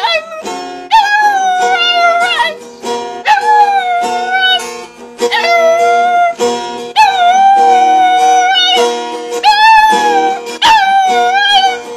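A young dog howling along to an acoustic guitar being played: about six long, slightly wavering howls, each a second or more, with short breaks between, over the guitar chords.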